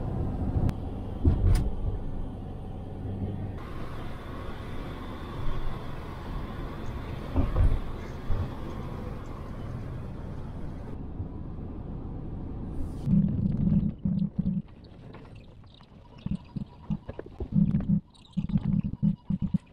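Steady road and engine rumble inside a moving van's cabin. After a cut past the middle, irregular low thumps and rumbles with short quiet gaps.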